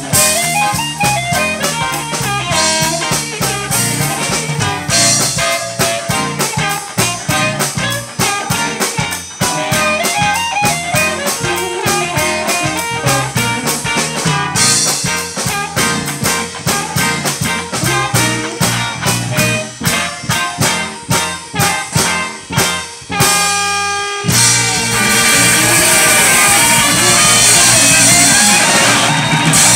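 Live blues band: amplified harmonica playing lead over electric guitar and drum kit in a driving rhythm. About six seconds before the end the band stops for a moment on a held chord, then comes back in with cymbals crashing continuously under guitar runs.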